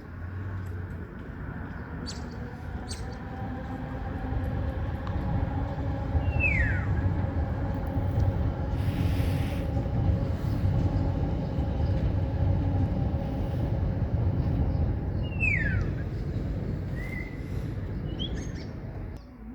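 A steady low rumble of a passing vehicle with a faint hum, swelling from about four seconds in and dropping away at the end. Over it a common starling gives two descending whistles and a couple of short high notes.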